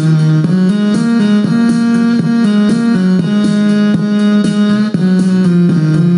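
Instrumental break of a backing track: an electronic keyboard plays over sustained chords with a steady rhythm, without singing.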